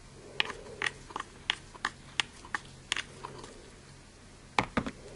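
Short, sharp, slightly wet clicks and taps as a paintbrush is loaded by dabbing it into a split cake of purple face paint: about ten quick taps at roughly three a second, then a pause and two louder taps near the end.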